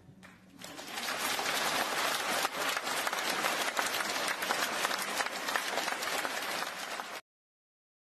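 Crowd applauding: dense clapping that swells in within the first second, holds steady, then cuts off suddenly about seven seconds in.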